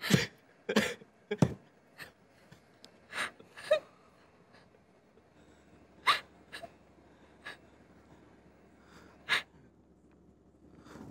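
A person crying: irregular gasping sobs and sharp catches of breath. They come close together in the first second and a half, then as a few isolated sobs with pauses between them.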